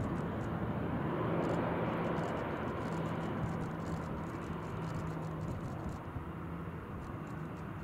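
Jet roar of a departing Boeing 777-300ER's GE90 engines heard from the ground as the airliner climbs away, slowly fading.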